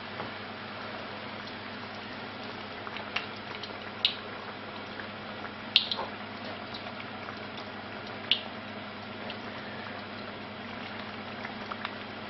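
Beer-battered basa fillet deep-frying in hot oil in a wok: a steady sizzle with a few sharper pops and crackles now and then.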